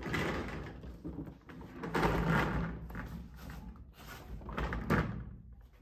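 Doors in a mine tunnel being pushed open and swinging shut, with a sharp knock about five seconds in.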